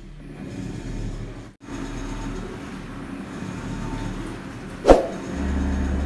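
Panasonic 8.5 kg top-load washing machine agitating a sudsy load: its inverter motor hums steadily under the swish and churn of water in the drum. A single sharp click comes about five seconds in, and a deeper hum starts just after it.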